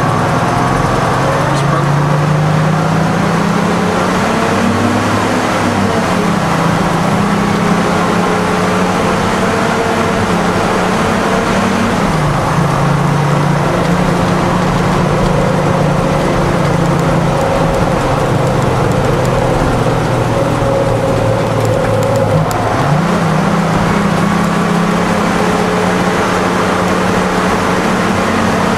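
Detroit Diesel 6-71 two-stroke diesel of a fire engine, heard from inside the cab while driving. The engine note climbs and then drops several times as the truck accelerates and the automatic transmission shifts.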